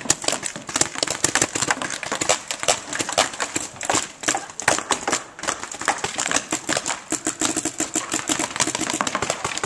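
Paintball markers firing during a game: a rapid, irregular stream of sharp pops, several a second, from more than one player.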